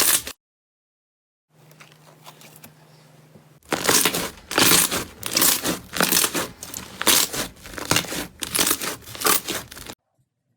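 Crunchy slime being pressed and squeezed, crackling in a quick irregular run of bursts. It comes after a short gap with a faint low hum, and it cuts off abruptly near the end.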